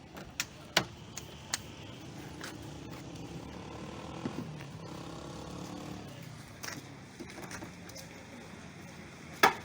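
Sharp clicks and knocks of plastic car interior trim covers being handled and pressed back into place, a few in the first two seconds, one more later, and the loudest knock near the end, over a steady low background hum.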